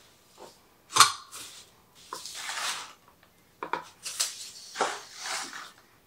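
A broom sweeping a hard floor: several short bristle swishes pushing leafy debris into a plastic dustpan, after a sharp knock about a second in.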